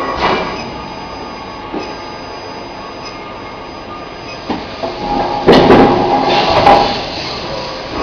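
Induction forging furnace with a pneumatic billet feeder running: a steady machine noise with a faint high whine that stops about four seconds in. A louder, rougher stretch of metal clanking follows, with sharp knocks about five and a half and six and a half seconds in.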